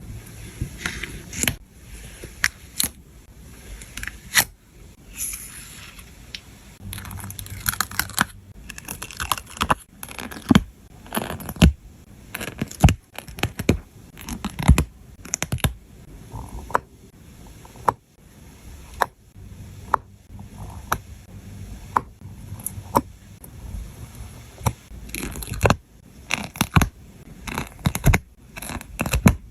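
Scenery stickers being peeled from their backing and pressed into place: scratchy peeling and scraping with many sharp taps and clicks scattered throughout.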